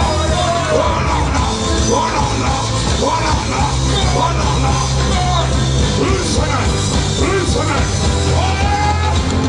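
Loud amplified music with a heavy bass line and a voice shouting and singing over it.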